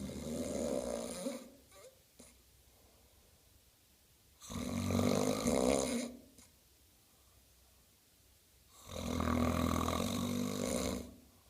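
Snoring: three long snores, each about one and a half to two seconds, coming roughly every four seconds with quiet breaths between.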